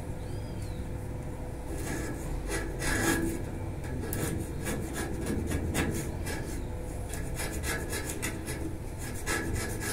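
A small hand tool scraping and rasping at the foot of a metal balcony railing post, in irregular strokes that start about two seconds in, over a steady low background rumble.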